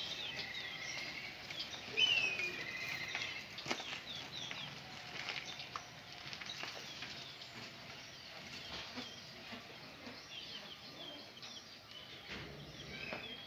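Small birds chirping and calling over and over, the loudest chirp about two seconds in, with a few faint clicks here and there.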